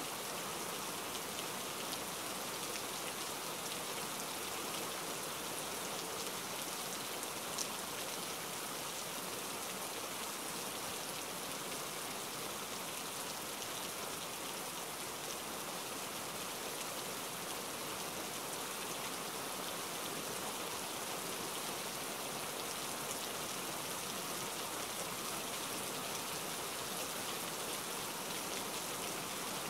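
Steady rain falling, an even hiss of many drops with fine individual drop ticks and, once, a sharper click.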